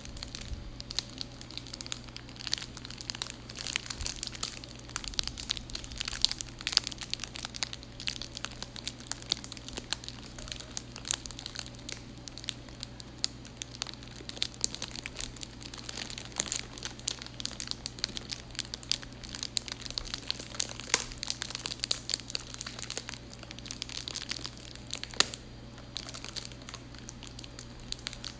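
Foley fire effect made by crumpling and crinkling a material: a dense, irregular run of sharp crackles and snaps that imitates burning, over a steady low hum.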